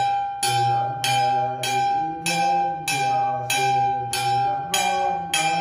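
A metal ritual bell struck in a steady beat, about three strokes every two seconds, each ring running into the next over a constant ringing tone.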